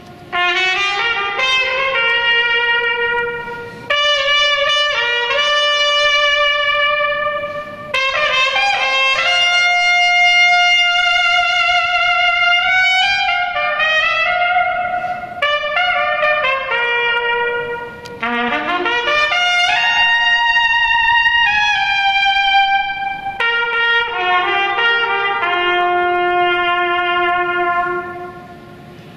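Solo trumpet playing an unaccompanied melody in phrases a few seconds long, with short breath breaks between them.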